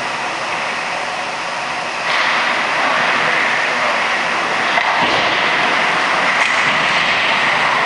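Steady noisy din of an ice hockey game in a rink, which gets louder about two seconds in, with a few faint sharp knocks later on.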